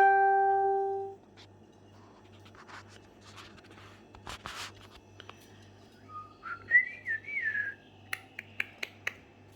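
A loud, steady whistled note at the start that stops about a second in, then a wavering, gliding whistle about six seconds in. A few sharp clicks follow near the end.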